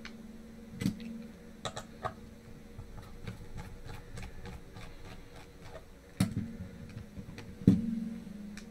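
Scattered light clicks and taps of small screws and a precision screwdriver being handled while the pump head of an MSI MAG 360R AIO liquid cooler is taken apart. Two louder knocks come about six and seven and a half seconds in, over a faint steady hum.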